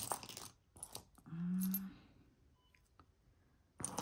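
Small pieces of costume and sterling jewelry clinking and jangling against each other while being handled and sorted, with a plastic-bag rustle at the start and end and a few sharp clicks about a second in. A short low hum sounds at about a second and a half.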